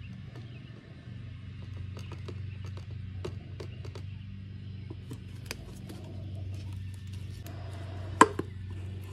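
Scattered light plastic clicks and taps as the snap-on lid of a West System colloidal silica filler canister is pried off and handled, with one sharp knock near the end, over a steady low hum.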